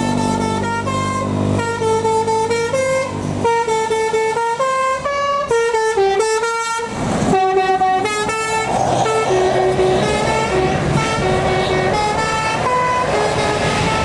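Tour bus's telolet basuri horn playing a melody of stepped, held notes, pausing briefly about halfway, with the bus engine running underneath and road noise rising in the second half.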